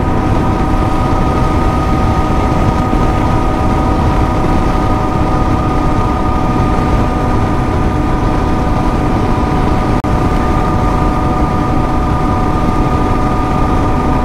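Royal Enfield Himalayan's single-cylinder engine running at a steady cruise, its pitch holding constant, with a rushing noise of wind and road beneath it.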